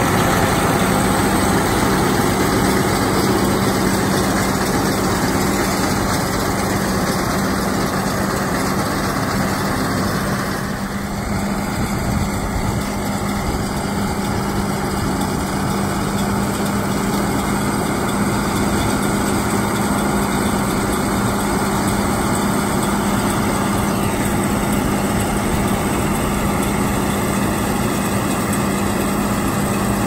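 Allis-Chalmers 7030 tractor's diesel engine running steadily under load while it pulls a John Deere 566 round baler picking up hay, with a constant low hum.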